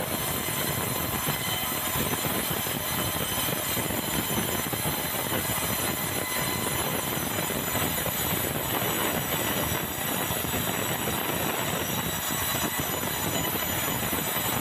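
Band sawmill blade cutting lengthwise through a large, hard, dry bengkirai (yellow balau) log as the carriage feeds it, a steady grinding noise with a high whine over it.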